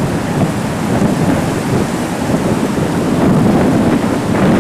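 Wind buffeting an analog camcorder's built-in microphone: a loud, unbroken noise that swells and dips with the gusts.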